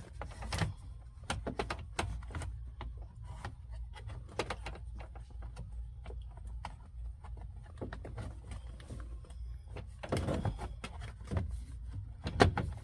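Irregular plastic and metal clicks, taps and rattles of an ignition switch and steering-column parts being handled and worked into place by hand, with a busier clatter about ten seconds in and a sharp knock near the end, over a steady low hum.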